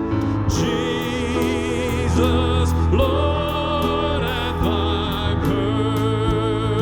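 Music: a voice sings long held notes with vibrato over a steady instrumental accompaniment, the notes changing about every second.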